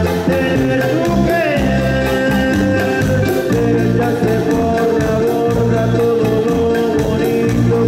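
Latin dance music from a band, played loud over a sound system, with a short sliding note about a second and a half in.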